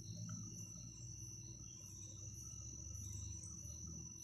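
Faint background noise: a steady high-pitched tone with faint, regularly repeated chirps above it and a low hum underneath.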